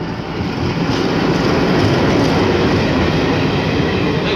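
Diesel locomotive of a passenger train running past close by, with the rumble and clatter of its wheels on the rails. The noise builds over the first second or two, then holds steady.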